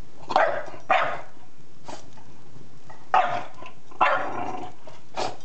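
English bulldog puppy barking at a fire in the fireplace: about six short barks in uneven bursts, some louder than others. He is barking at the fire as something strange and unwelcome.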